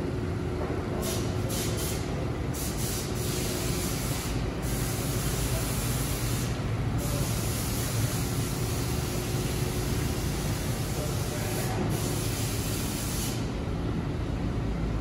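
Steady low mechanical hum with a hiss over it; the hiss drops away briefly several times.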